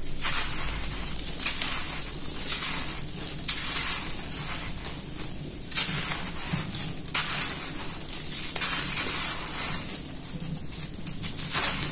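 Dry red dirt chunks being crushed and crumbled between bare hands, a gritty crunching with crumbs and dust falling onto a cement floor. A few sharper crunches come as chunks break.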